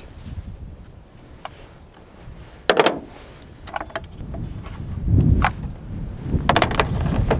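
Several sharp clicks and knocks of hand tools and chainsaw parts being handled, the loudest about three seconds in and a quick cluster near the end, with wind rumbling on the microphone in the second half.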